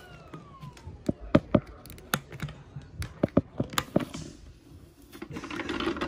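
Vacuum cleaner motor spinning down after being switched off, its whine falling in pitch and fading out about a second in. Then a run of sharp plastic clicks and knocks as the clear dust cup is handled, and a rustling near the end as the dirt is dumped out of it.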